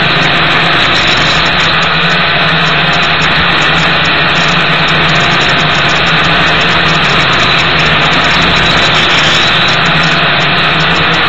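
Gptoys Aviax F2C quadcopter's electric motors and propellers running at a steady hum and buzz, heard close through the drone's own camera microphone, mixed with rushing wind noise.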